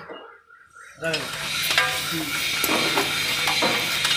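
About a second of near silence, then a steady hiss with scattered light metallic clicks and clinks.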